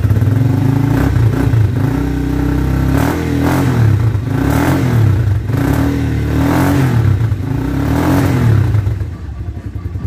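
Motorstar Z200R motorcycle engine being revved with the throttle, rising and falling about three times, then dropping back to idle near the end.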